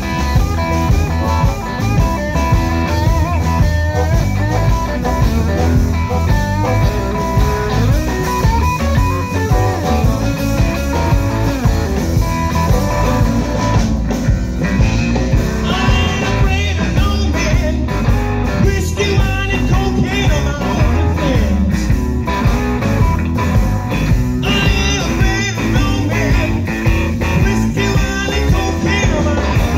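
Live electric blues band playing an instrumental stretch: electric guitar, electric bass and drums, with a harmonica cupped in the hands.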